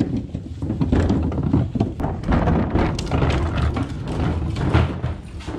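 Two wheeled plastic trash bins being pulled along, their wheels rumbling and rattling with irregular knocks and clatters.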